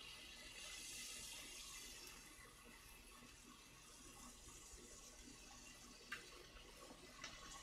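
Near silence: a faint steady hiss from a gas stove burner cooking egg custard in an earthenware pot, with two soft ticks near the end.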